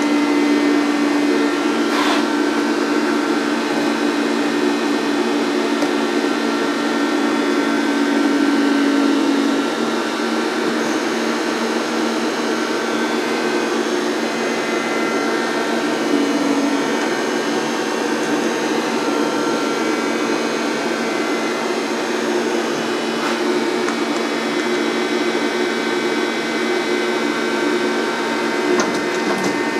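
EMCO Emcoturn 365 CNC lathe under power, a steady electric machine hum with several whining tones. A low tone in the hum drops out about ten seconds in and comes back briefly later, and there is a short click about two seconds in.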